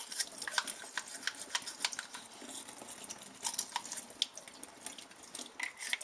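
Hot water running from a kitchen tap and splashing into a stainless steel sink while a toothbrush scrubs grime and limescale off a plastic dishwasher float chamber under the stream: a steady light hiss broken by many short, irregular scratches and ticks.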